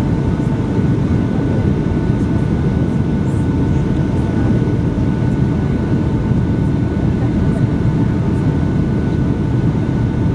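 Steady cabin noise inside a Boeing 757-200 on final approach, with flaps and landing gear extended: a low, even rumble of engines and rushing air. A faint steady whine sits above it.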